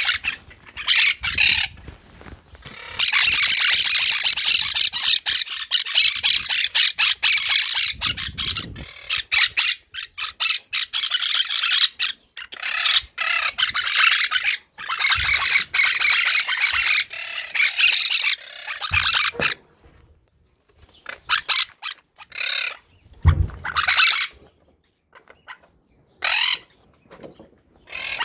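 Monk parakeets squawking and chattering loudly in long, dense runs of harsh, high-pitched calls, breaking into shorter scattered calls in the latter part, with a few low bumps from handling.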